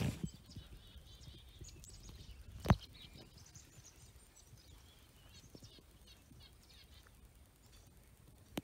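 Faint high chirping calls of birds, with one sharp knock a little under a third of the way in.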